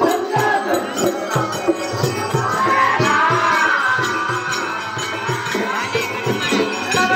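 Live folk-theatre music: a steady, fast drum beat with jingling percussion and a voice singing or calling over it, heard amid crowd noise.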